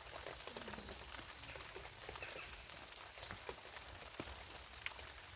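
Light rain falling in woodland, with many scattered small ticks and taps of drops.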